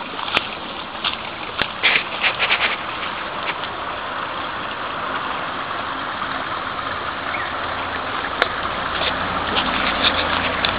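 Steady rush of water flowing along a small concrete irrigation channel, with crunching footsteps and clicks on gravel in the first few seconds. A low rumble grows near the end.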